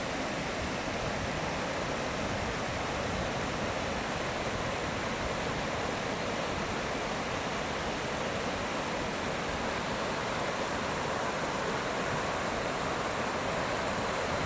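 Steady rushing of a waterfall, water falling without a break into a pool.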